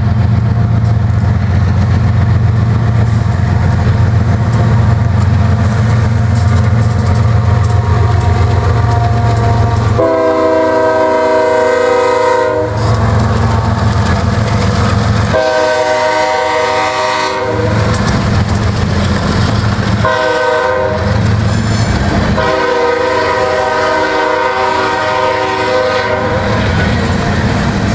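BNSF GE ES44AC diesel locomotives pass close by with a loud engine rumble. The locomotive horn then blows long, long, short, long, the standard grade-crossing signal. Coal hopper cars roll by on the rails between and after the blasts.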